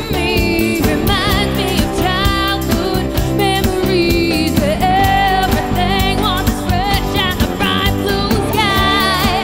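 Live cover band playing a rock-pop medley: drums and bass under a wavering high melody line with vibrato, with singing.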